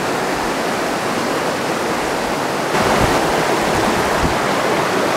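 Steady rushing of river water flowing among rocks at the bank, growing louder a little past halfway.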